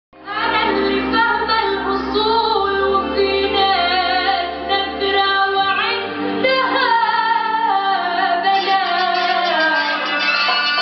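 Music with a woman singing a winding melody over a held low drone; the drone stops a little before halfway through.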